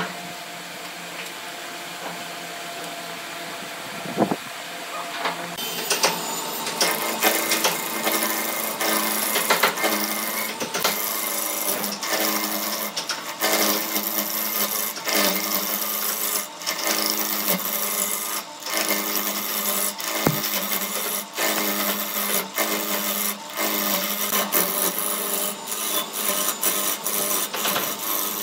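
Wood lathe running with a steady hum; about five or six seconds in a gouge starts roughing down the spinning glued-up hardwood block, a loud rattling cutting noise full of sharp clicks that continues to the end.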